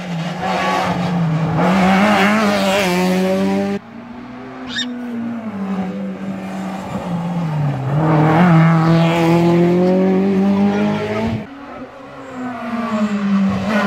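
Rally car engines revving hard, the pitch climbing through the revs and then cut sharply at a lift-off or gear change about four seconds in and again late on.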